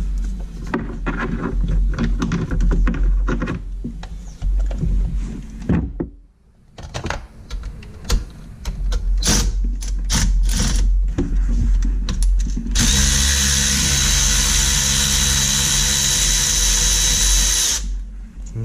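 Cordless ratchet running steadily for about five seconds in the second half, spinning off a fastener on the Sea-Doo engine, then stopping suddenly. Before it come scattered clicks and knocks of tools and parts being handled.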